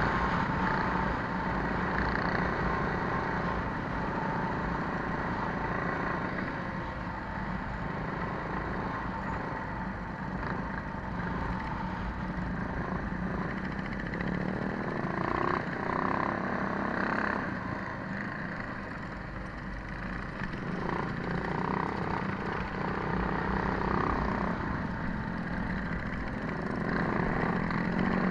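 Minibike's small engine running steadily under throttle while riding, with the noise of the ride over the microphone. Its level rises and falls a little as the bike slows and speeds up through the course.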